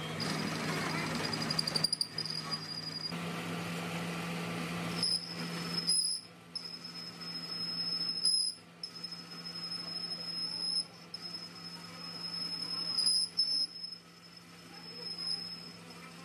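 Metal lathe turning a steel truck axle hub part: a steady machine hum with a thin high-pitched whine from the cutting tool on the metal, which drops out briefly several times.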